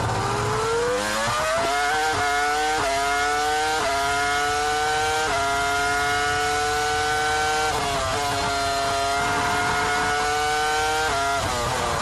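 Ferrari F2004's 3.0-litre V10 engine heard from the onboard camera at full throttle. Its pitch climbs in steps through several quick upshifts, then holds high along the straight. It shifts down about eight seconds in, and shifts down again near the end with the pitch falling as the car brakes for a corner.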